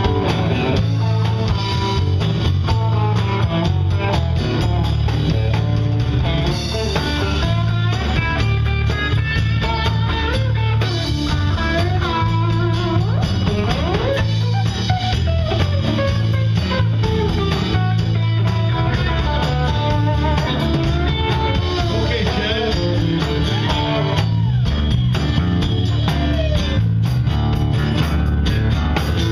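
Live blues band playing: acoustic guitar, electric guitar, electric bass and drums.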